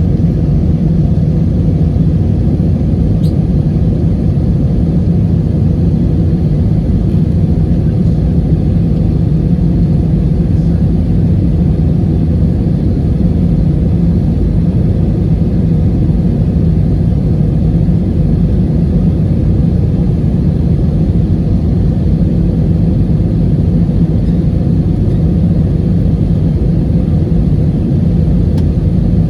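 Airliner cabin noise: the steady low rumble of the jet engines and airflow, heard from inside the passenger cabin, with no change in pitch or level.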